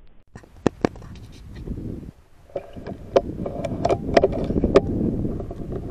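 Airgun shot: two sharp cracks close together, then rustling and handling noise with many scattered clicks.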